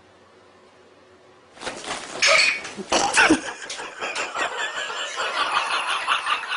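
A faint steady hiss, then from about a second and a half in a sudden, loud mix of people's voices and laughter with animal sounds.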